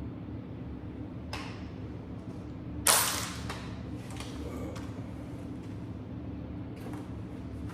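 A single loud, sharp bang about three seconds in that rings out briefly, with a fainter click before it and a few light clicks after, over a steady low hum.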